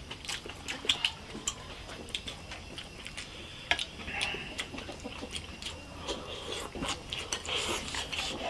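Two people eating with chopsticks: scattered short clicks of chopsticks against rice bowls and the wok, with chewing.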